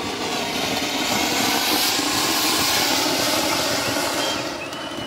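Ground fountain firework spraying sparks: a loud, steady hiss that swells over the first second or two and dies away near the end.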